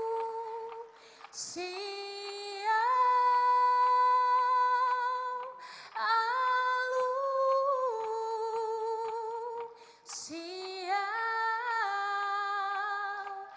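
A woman singing solo and unaccompanied in long held notes with slow slides between pitches, in phrases broken by short breaths about two, six and ten seconds in.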